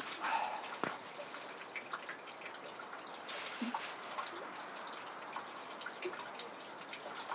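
Faint trickling, dripping water with scattered small clicks and a few brief chirps.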